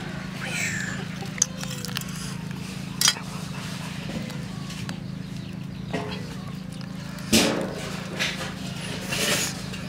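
Charred, crisp-skinned grilled fish being torn apart by hand on a wire grill rack: crackling and rustling, with a few sharp clicks, the loudest about seven seconds in. A steady low hum runs underneath.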